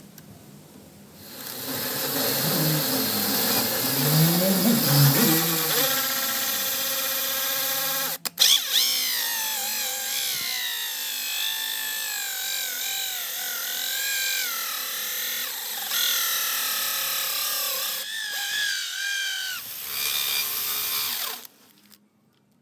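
Electric drill driving a hole saw into wood, its motor whine wavering in pitch as the saw loads up and eases off. It starts about a second in, stops briefly about eight seconds in, and cuts off shortly before the end.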